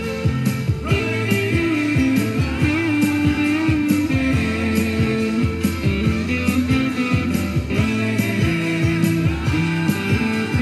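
Electric guitar playing a lead line with string bends over a backing track with a steady drum beat.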